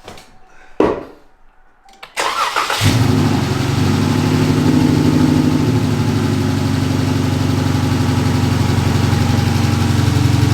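A sharp click, then about two seconds in the starter of a 2016 Dodge Challenger's 3.6-litre V6 cranks briefly and the engine catches and settles into a steady idle. The idle follows new spark plugs fitted to cure a cylinder 1 misfire.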